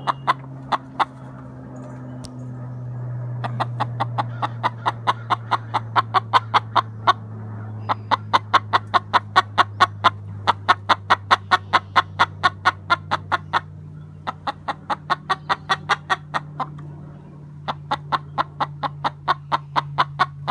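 An Ameraucana hen clucking loudly and repeatedly, in several long runs of quick clucks at about three or four a second, with short pauses between the runs.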